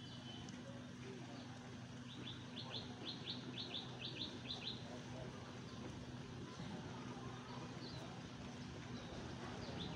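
A bird calling: a quick run of about ten short, high, falling chirps, about four a second, starting about two seconds in and lasting a couple of seconds, then starting again near the end. A steady low hum runs underneath.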